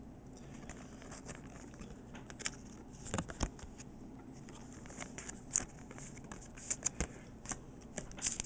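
Plastic binder pages holding trading cards being handled, with light crinkling and irregular small clicks and taps that come more often from about three seconds in.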